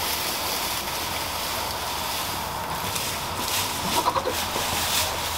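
Dry hay rustling as the top flake is pulled off a baled hay stack held in a slow-feed hay net, with a few light scrapes near the end.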